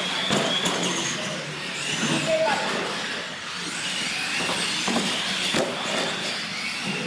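Radio-controlled monster trucks racing, their small electric motors whining, the pitch rising and falling with the throttle.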